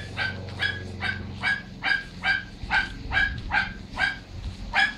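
A dog barking over and over, about two or three barks a second at the same pitch.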